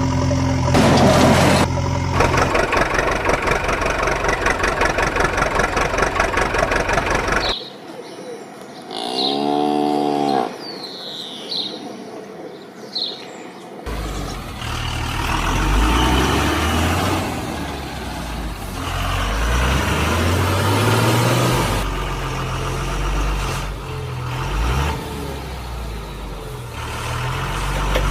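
Animated sound effects of heavy truck engines: a pulsing engine sound for several seconds, a quieter stretch with a few short pitched calls midway, then engines running again with several rising revs.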